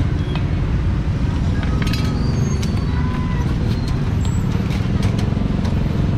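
Steady rumble of street traffic, with scattered clicks and clatter.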